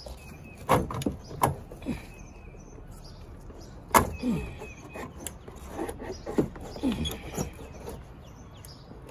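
Knocks and clicks of a car audio amplifier's case being worked loose by hand from its mount in the trunk floor. The sharpest knock comes about four seconds in, with several short sounds that fall in pitch between the knocks.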